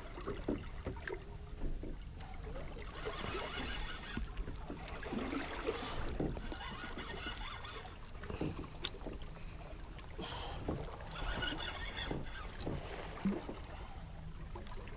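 Sea water lapping and splashing against the hull of a small fishing boat, over a steady low rumble, with a few short knocks scattered through.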